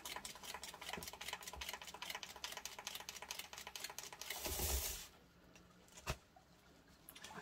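Stainless steel cake turntable spinning, with a faint, fast, even ticking. The ticking stops with a short scuffing noise a little over four seconds in. Near silence follows, broken by a single click about six seconds in.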